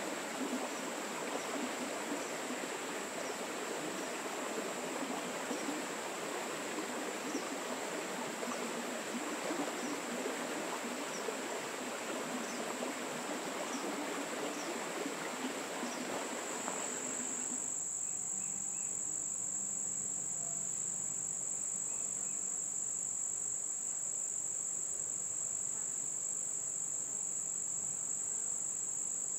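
Light rain pattering on a pond, with insects trilling steadily and high-pitched behind it. About two-thirds of the way through, the rain sound cuts off suddenly, and the steady high insect trill carries on louder and clearer on its own.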